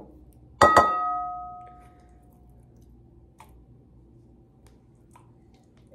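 A glass mixing bowl struck twice in quick succession about half a second in, ringing with a clear tone that fades over about a second and a half. Afterwards, faint light clicks as a spatula scoops canned pumpkin from the can.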